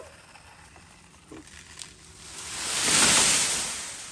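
A felled leafy tree toppling, its crown of branches and leaves rushing through the air and crashing down onto the yard: a swelling whoosh that starts about two seconds in, peaks around three seconds and dies away.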